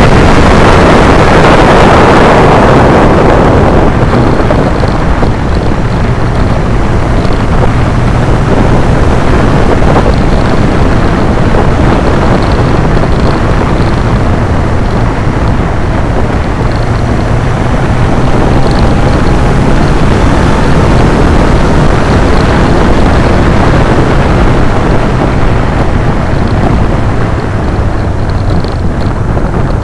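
Motorcycle running at speed through a series of bends, its engine note under heavy wind rush on the microphone. The wind is loudest in the first few seconds.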